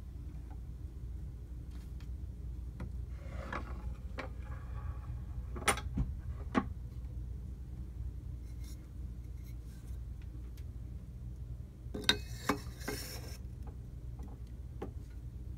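Handling noises of a cylinder phonograph and its record: scattered rubbing, three sharp clicks about six seconds in, then a cluster of clicks with a scraping rub near the end as a blue celluloid cylinder record is slid onto the Amberola's mandrel.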